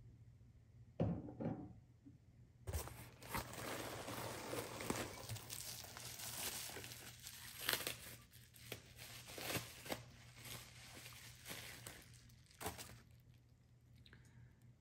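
Packing material crinkling and rustling as a wrapped bottle is unwrapped: a brief rustle about a second in, then about ten seconds of continuous crinkling with sharp crackles, settling down near the end.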